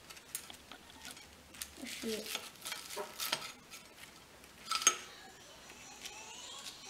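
Knife and fork cutting through a battered fish fillet on a plate: scraping and clicking of the cutlery against the plate, with a sharper clink about five seconds in.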